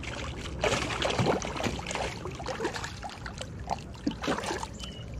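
Water splashing and sloshing around a small plastic kayak, with scattered light knocks against the hull.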